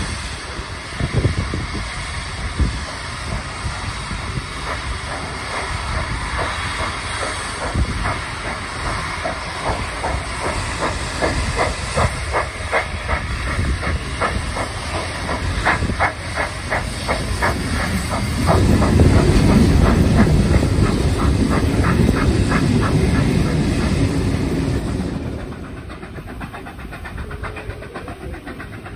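Steam locomotive 3801's train heard from an open carriage window: the rolling noise of the carriage wheels on the rails and the hiss of steam. In the middle there is a fast, even beat, then a loud low rushing for several seconds, and the sound drops quieter near the end.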